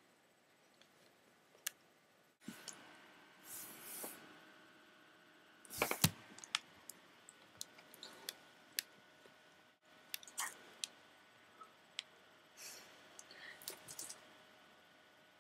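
Scattered light clicks and knocks from handling, with a louder knock and clatter about six seconds in and brief rustles between.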